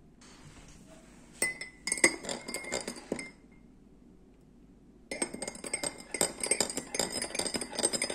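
Metal teaspoon stirring café au lait in a glass mug, clinking rapidly against the glass. One short run of clinks about a second and a half in, a pause, then a longer, busier run from about five seconds in.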